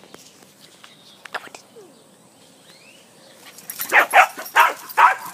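West Highland White Terriers barking: a quick run of about four loud, short barks near the end, after a few faint clicks.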